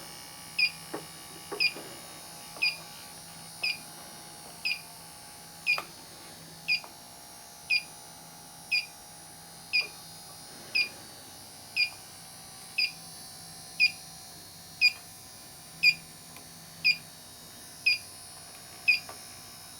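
Electronic refrigerant leak detector beeping at an even rate of about one short chirp a second. The rate does not speed up, its idle tick showing no leak found at the probe.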